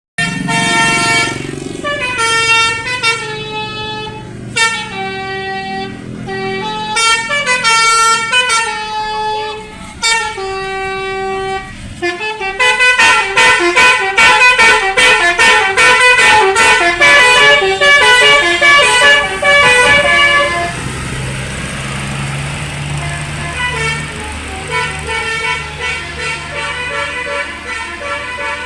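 Basuri telolet air horns playing melodies, loud sustained notes stepping from pitch to pitch. Just under halfway through the tones thicken into a dense overlapping chord of notes. In the last third the tune turns fainter over a low engine hum.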